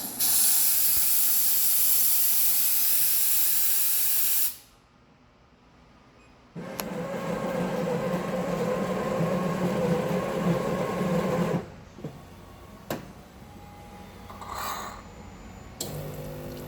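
WMF 2000S automatic espresso machine running through a cycle: a loud steam-like hiss for about four seconds, a brief lull, then a motor running steadily for about five seconds. Scattered clicks follow, and a low steady buzz starts near the end.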